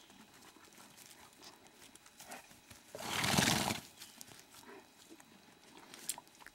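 A horse blows one loud snort through its nostrils, about a second long, about three seconds in. Faint small knocks and rustles come before and after it.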